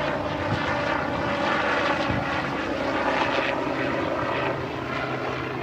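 Sikorsky UH-60 Black Hawk helicopter flying overhead: a steady drone of its rotors and twin turbine engines, slightly quieter near the end.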